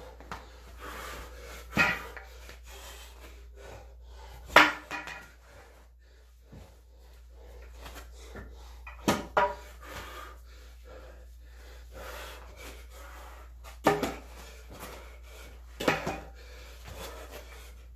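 Wooden practice sword (bokken) giving sharp wooden knocks and clacks, about six of them spaced a few seconds apart, with quiet rustling of body and clothing on carpet in between.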